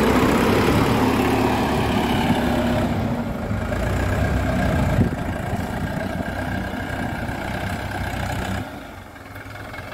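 Force Balwan tractor's diesel engine running as it drives slowly, towing a loaded trolley. It runs steadily and drops in level near the end.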